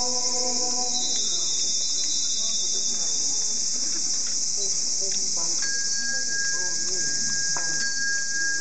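A steady high shrill of crickets chirping in the night, running unbroken; a group's chanting fades out about a second in, and a thin steady tone joins about halfway through.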